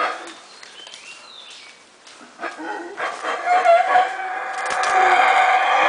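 Black howler monkeys howling, two troops calling against each other over territory. The calls are faint for the first couple of seconds, then swell into loud, sustained howling from about three seconds in.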